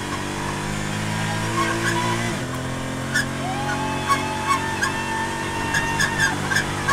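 Porsche GT4 race car's flat-six engine at full throttle, heard from inside the cabin. It pulls in second gear, upshifts to third about two and a half seconds in, and keeps pulling. Short sharp clicks start about three seconds in and come more often toward the end.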